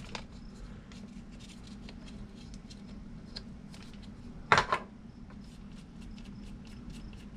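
Small hand tool and parts being handled on an RC crawler during a wheel change: faint light clicks throughout, with one sharper clack about four and a half seconds in, over a steady low hum.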